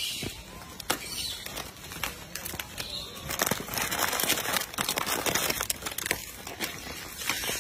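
Plastic food wrappers crinkling and crackling in irregular bursts as macaques grab and handle plastic-wrapped cakes.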